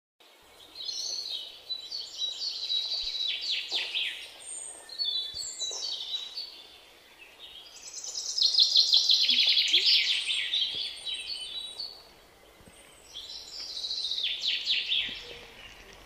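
Songbirds singing: four phrases of fast, high trilling notes with short pauses between them, the loudest phrase about halfway through.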